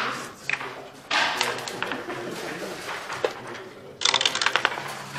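Backgammon checkers and dice being handled on the board: softer sliding noise, then, about four seconds in, a quick run of sharp clicks and clatter.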